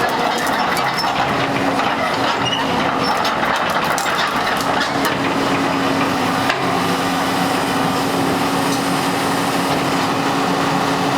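Hitachi EX200-2 excavator's diesel engine running steadily with a constant hum, with scattered clicks and knocks over the first few seconds.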